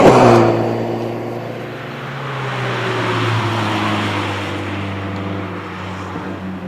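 Toyota Celica GT4's turbocharged 2.0-litre four-cylinder engine running at a steady note, with a slowly falling tone above it, after a loud sudden burst of sound right at the start.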